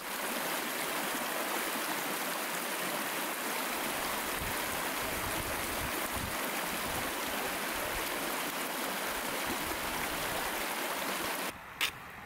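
Fast-flowing mountain river rushing and splashing over rocks, a steady noise of rapids. It cuts off abruptly near the end, leaving quieter surroundings with one brief click.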